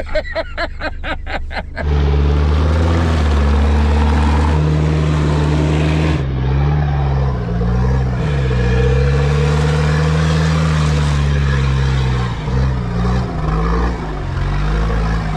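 Off-road vehicle's engine running: a rhythmic chugging for about two seconds, then a louder steady drone whose pitch drops and climbs back several times around the middle and again near the end.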